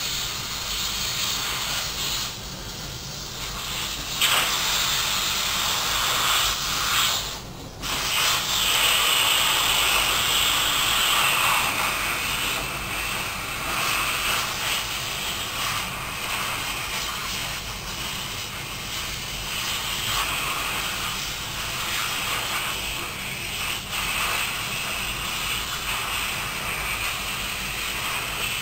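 Air hissing steadily out of a 30-inch latex balloon as it deflates, with a brief break about seven seconds in.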